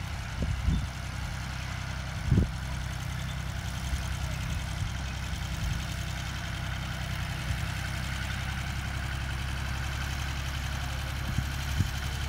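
1963 Fendt Farmer 2D tractor's diesel engine running steadily while it pulls a hay tedder through the cut hay. A few short knocks stand out over it, the loudest about two and a half seconds in.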